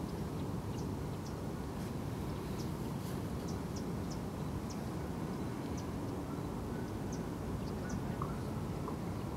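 Marsh ambience: a steady low rumble, with faint, short high-pitched chirps scattered through it about once or twice a second.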